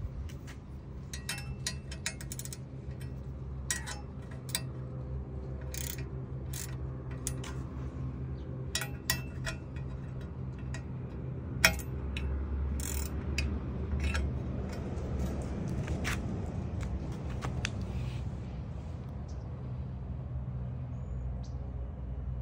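Ratcheting wrench tightening bolts on an aluminium carrier mounting plate: scattered sharp metallic clicks, thinning out after about halfway, over a steady low hum.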